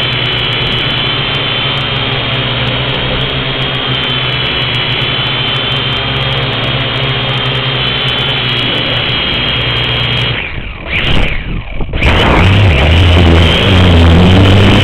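Syma X1 quadcopter's four small electric motors and propellers running with a steady high whine, heard up close from the camera mounted on the craft. About ten and a half seconds in the sound dips and breaks up briefly, then comes back louder.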